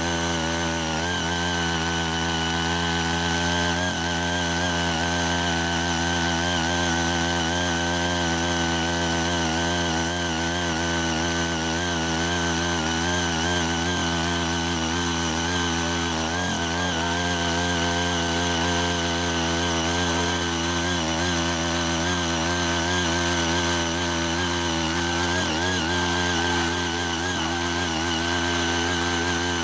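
CHING YEE CY80 mini power tiller's small engine running steadily under load as its rotary tines churn weeds and soil. Its pitch sags briefly now and then as the tines bite.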